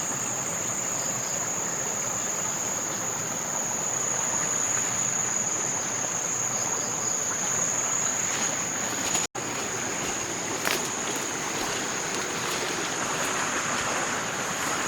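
Forest ambience: insects droning in one steady high-pitched note over a constant rushing hiss. The sound cuts out for an instant about nine seconds in, and a single click follows a moment later.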